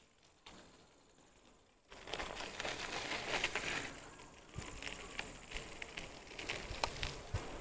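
Riding noise from a bicycle in motion: a rustling, crackly haze with scattered clicks and rattles, starting about two seconds in after near silence.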